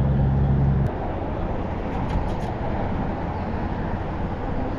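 A steady low hum that cuts off with a click about a second in, leaving an even rushing noise.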